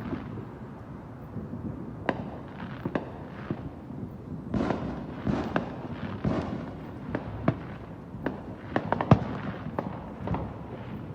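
Fireworks going off in a dense, irregular barrage of bangs and crackling over a rolling rumble. The bursts come thickest around the middle, and the loudest sharp bang falls about nine seconds in.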